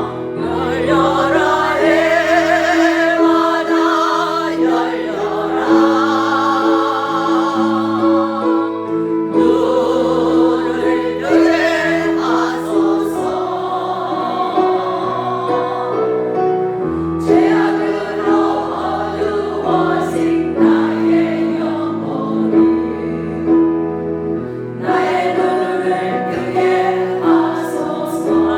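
Christian worship song: a choir singing in phrases over a single held note that runs underneath the whole passage.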